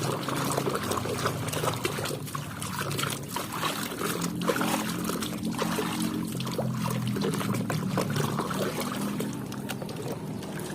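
Water trickling and splashing as a muddy toy vehicle is washed by hand, with many small clicks and knocks of the toy being handled.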